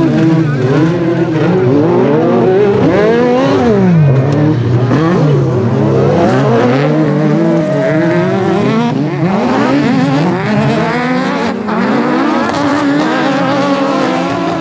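Several autocross buggy engines revving hard at once. Their pitch climbs and drops again and again as the cars accelerate and change gear on the loose dirt track.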